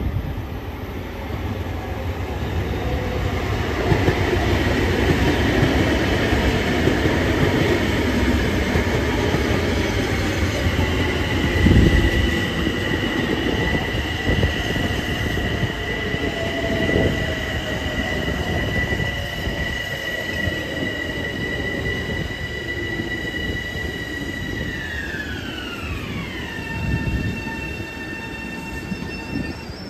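LIRR M7 electric multiple-unit train pulling slowly into a station: wheels rumbling on the rails with knocks over the joints, the loudest about twelve seconds in. Over it a high two-note electric whine from the train's traction motors holds steady, then slides down in pitch about 25 seconds in as the train slows.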